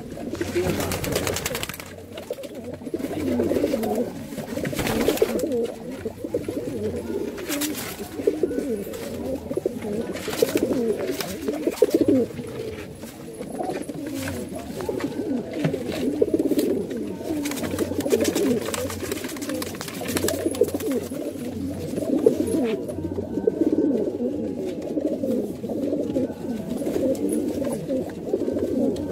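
Domestic pigeons cooing steadily and repeatedly, the courtship cooing of a pair being mated in a loft box. A few brief knocks come through over the cooing.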